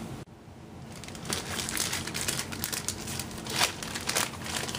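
Clear plastic bag crinkling and rustling as it is handled and opened, a quick irregular crackle that starts after a brief dropout near the start.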